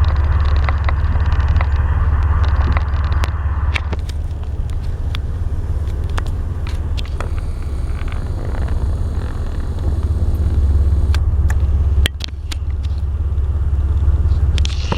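Steady low rumble of road and engine noise inside a moving car, with scattered small clicks and a brief dip in level about twelve seconds in.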